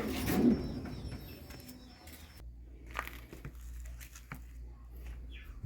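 Handling noises as a cut piece of washing-machine panel is fitted into a freezer's floor: rustling and scraping, then a few light clicks and knocks, over a steady low hum.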